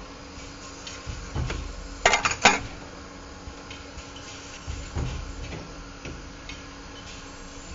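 TGF 50 automatic pipe cutter running on brass pipe: a steady machine hum with a quick cluster of sharp metallic clanks about two seconds in, and a duller thump before and after them as the machine cycles.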